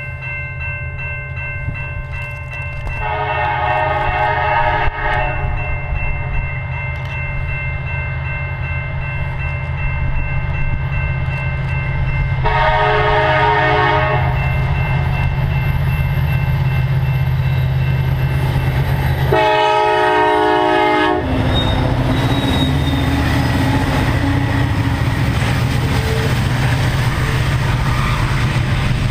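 EMD SD70ACe diesel locomotive sounding its air horn three times on approach to a grade crossing: a long blast a few seconds in, then two shorter ones, over the steady ringing of the crossing bell. Near the end the locomotive and the double-stack intermodal cars pass close by, rumbling and clattering over the rails.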